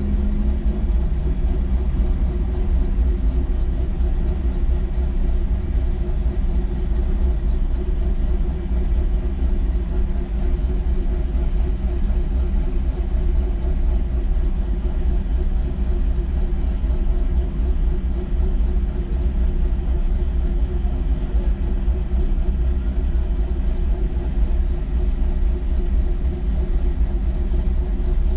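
Car engine running at a steady speed with a continuous low rumble and no rises or falls in revs.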